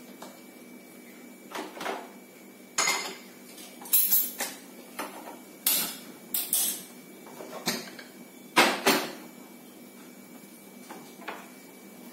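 Kitchen dishes and utensils clinking and knocking as they are picked up and set down: a string of about a dozen sharp knocks spread over several seconds, the loudest about two-thirds of the way in.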